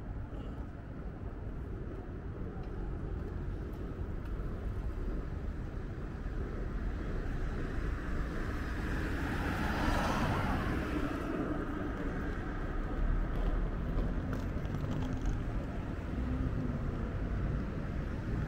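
Road traffic with a steady low rumble; a vehicle passes close by about halfway through, swelling to its loudest and then fading.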